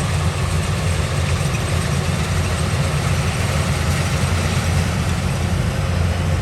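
An engine running steadily, a low drone under an even mechanical noise, with no change in speed.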